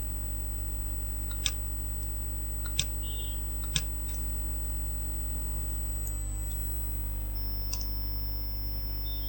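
Computer mouse clicking three times in the first four seconds, with a fainter click later, over a steady low electrical hum.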